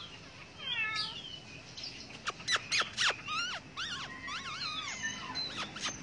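Caged songbird singing: a falling whistled note about a second in, then a run of quick down-slurred notes and warbling phrases through the middle.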